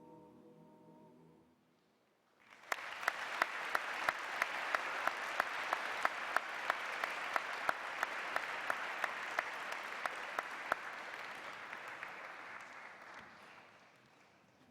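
A held final chord dies away, then after a short pause an audience applauds for about ten seconds before the applause fades out. One loud clapper close to the microphone stands out, clapping about three times a second.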